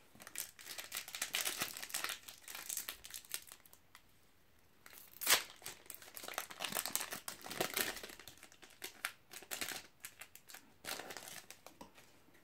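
Trading-card booster pack wrapper crinkling as it is handled and torn open, in irregular bursts, with one short sharp tear about five seconds in, the loudest sound.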